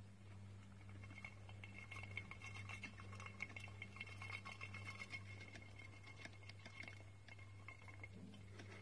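Plastic saucer-style hamster wheel spinning under a running hamster: faint rapid clicking and rattling, with a thin steady whine, over a low steady hum.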